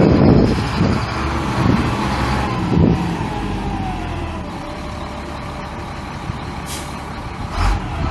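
Caterpillar 3126 7.2 L inline-six turbo diesel of a Freightliner FL70 truck running, with a steady low rumble. A whine falls in pitch over several seconds, levels off and rises again near the end. A short hiss comes just before the end.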